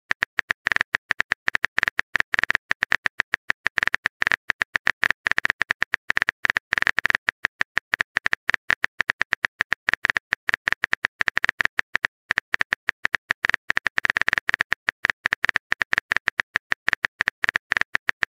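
Rapid, continuous phone-keyboard typing sound effect: short sharp taps, about ten a second, running on with small uneven gaps.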